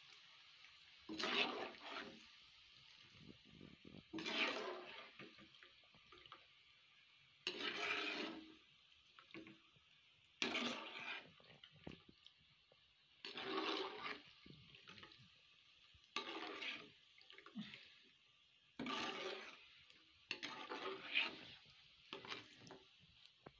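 Sliced bitter gourd being stirred and lifted in hot frying oil in a wok with a long-handled skimmer: a short burst of sizzling and splashing about every three seconds, fairly faint.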